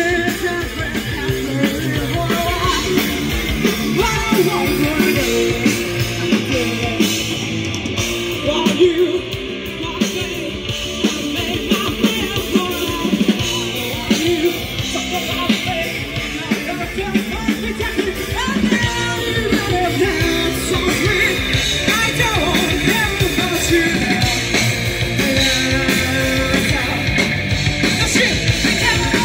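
Live rock band playing a song: a woman singing lead over electric guitars, bass guitar and drums.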